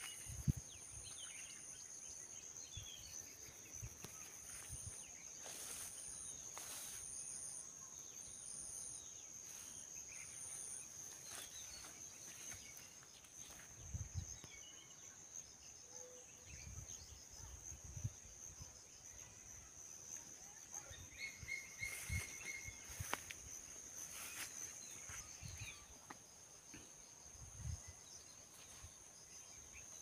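Faint insect ambience: a steady high-pitched trill, with a second, higher chirp pulsing on and off through the first third. Occasional low rumbles come and go underneath.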